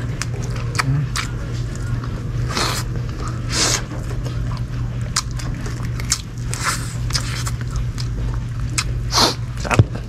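Close-miked eating: chewing roasted quail, with many short clicks and lip smacks, over a steady low hum.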